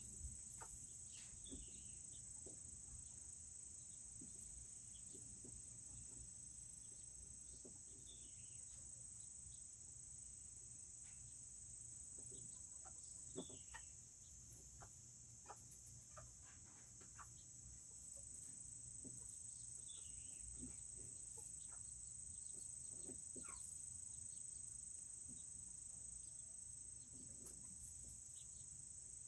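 A steady, high-pitched insect chorus, crickets by the sound, with a few faint, short chirps from the serama chickens that fall in pitch, spread out every few seconds.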